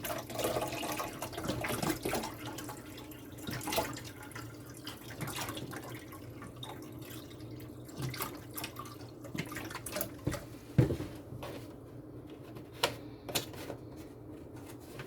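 White vinegar being poured into a Keurig's plastic water reservoir, a splashing pour for descaling that eases off about halfway through. A few sharp clicks and knocks of plastic being handled follow near the end.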